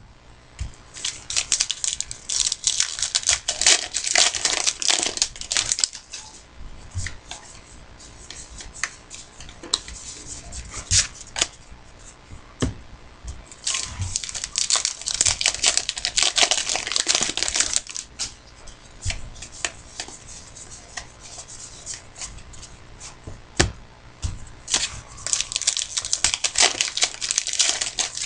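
Trading-card pack wrappers being torn open and crinkled, in three stretches of a few seconds each, with scattered light taps from handling the cards between them.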